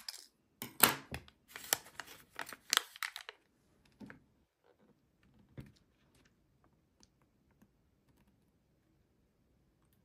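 Crinkly plastic potion sachet rustling and crackling as it is handled right after being cut open, in a run of loud strokes for about three seconds. After that come only faint taps and soft rustles as the sachet is tipped into the top of the toy potion bottle.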